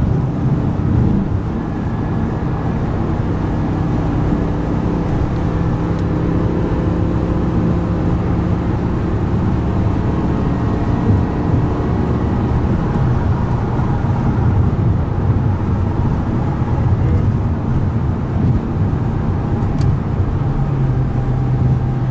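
G-Power Hurricane RR BMW M5's supercharged V10 engine running steadily at motorway cruising speed, mixed with tyre and wind noise as heard from inside the car.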